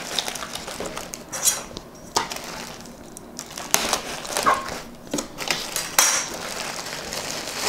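Plastic bag crinkling and cardboard packaging scraping as a bagged speaker is pulled from its box, with scattered sharp clicks and knocks of handling.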